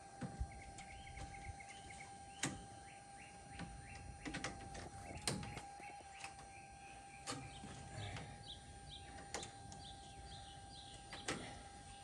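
Scattered light knocks and clicks from metal gutter pieces being handled and fitted together, one every second or two, with birds chirping in short repeated runs and a faint steady tone underneath.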